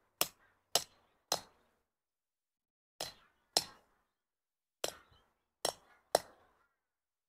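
Hammer striking the hex head of a flush-head sleeve anchor, driving it through a steel hanger into a drilled hole in rock. Eight sharp metal-on-metal strikes: three in quick succession, a pause, two more, then three more.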